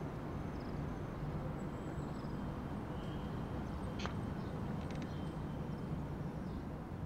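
Steady low city ambience like distant traffic, with faint short high chirps and a single faint click about four seconds in.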